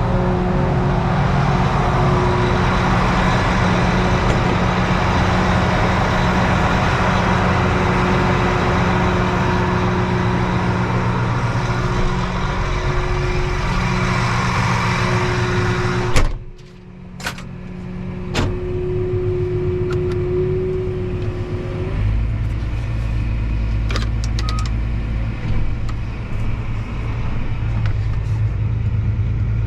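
Tractor engine running steadily while pulling an empty grain wagon. About halfway through the sound breaks off suddenly with a sharp click, a few clicks follow, and then a deeper, steady engine rumble takes over.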